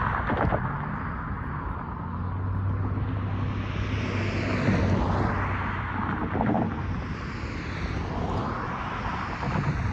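Road traffic passing: cars going by one after another, their tyre and engine noise swelling and fading with each pass, with a few short thumps.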